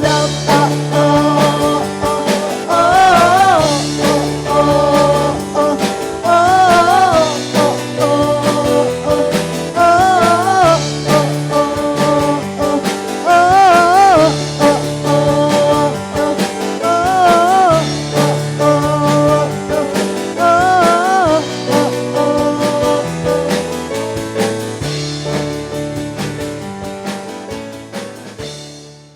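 Worship band playing the song's instrumental outro: a repeating bass line under a wavering melody line that recurs every few seconds. The music fades out near the end.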